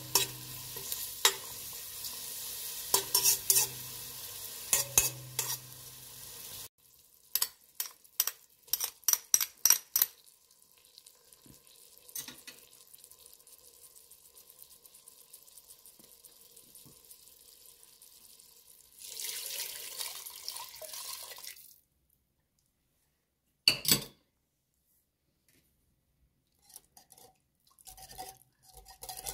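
Chicken pieces and sliced onion frying in oil in a stainless steel pot, sizzling, while a utensil stirs them with sharp clinks and scrapes against the metal. After about six seconds the sizzle stops, giving way to a run of quick clicks, a long quieter stretch, a second short burst of sizzling about twenty seconds in, and a near-silent gap broken by one knock.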